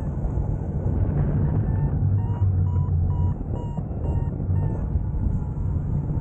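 Airflow rushing over the microphone of a hang glider in flight, with a flight variometer beeping short tones about twice a second, the pitch stepping slightly up and down from beep to beep: the vario signalling that the glider is climbing.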